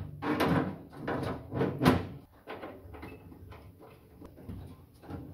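Packing foam being pulled and scraped out of an air filtration unit's cabinet: three scraping rubs in the first two seconds, then quieter scattered knocks and rustles.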